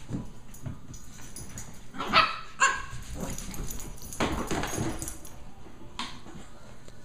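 Lhasa Apso puppy barking twice, two short high yaps about half a second apart a little over two seconds in, with rustling and scuffling from the puppies wrestling in a plush dog bed.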